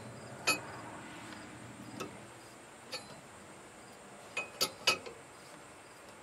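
Steel wrench clinking against a bolt-on puller on the crankshaft damper pulley, in sharp single metallic clinks with a short ring. There are three spaced strikes, then a quick run of three near the end.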